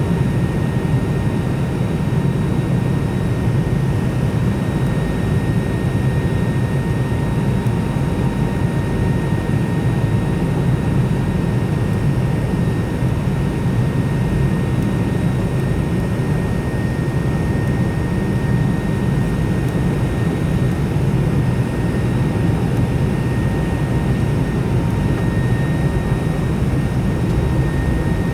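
Steady cabin noise of a McDonnell Douglas MD-90 airliner: a low rumble of engine and airflow with a faint steady whine from its rear-mounted turbofans above it.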